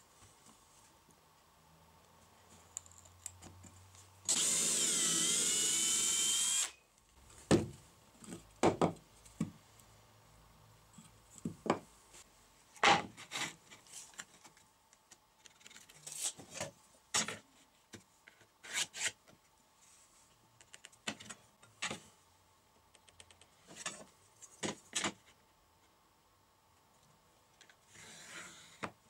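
A power tool runs for about two and a half seconds, its pitch dipping and then climbing back. After that come scattered sharp knocks and taps as plywood and tools are handled on a wooden workbench.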